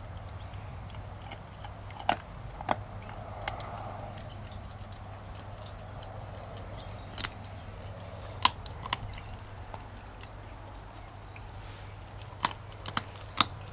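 Leonberger puppy chewing a raw chicken frame, the small bones giving sharp irregular crunches, several in quick succession near the end.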